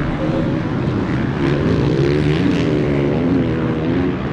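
Motocross bike engines on the track, revving up and down in pitch as the riders work the throttle, with more than one engine heard at once.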